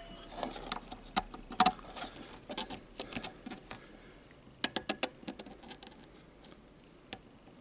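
Scattered light clicks and taps, with a quick run of about five near the middle, from handling a soldering-iron insert tool and a 3D-printed part while a brass threaded insert is pressed in.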